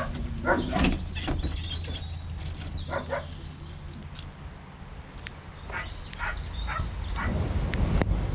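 A dog barking in short bursts, several times, over a steady low hum.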